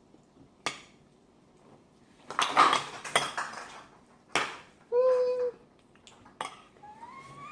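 Spoon and fork clinking and scraping against a plate while eating: several separate clinks, with a busier clatter around the middle. A short held voice sound about five seconds in and a rising whine near the end.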